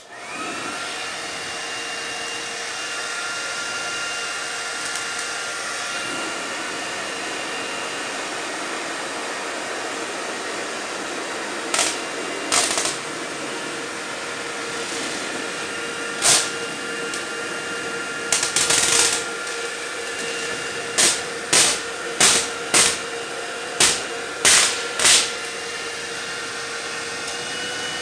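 Handheld hair dryer switched on, spinning up, then running steadily with a constant whine as it heats car window tint film. From about halfway, short sharp scraping strokes louder than the dryer come in clusters, about two a second near the end: a razor blade working the tint on the glass.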